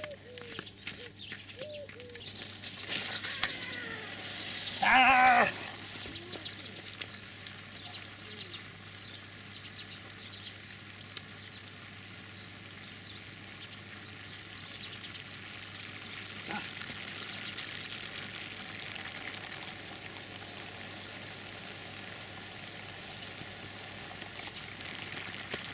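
Oscillating garden sprinkler with a turbine motor spraying water through its row of nozzles: a louder hiss as the water comes on about two seconds in, settling into a steady faint hiss of spray. A brief loud pitched call cuts in about five seconds in.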